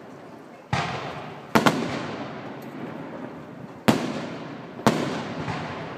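Aerial fireworks bursting: four loud bangs, the second a quick double, each followed by a long fading echo.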